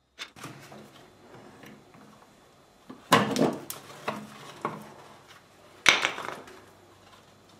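Knocks and scraping as the old plastic safety shield is worked loose from a tractor PTO driveline by hand. The loudest knocks come about three seconds in and again near six seconds.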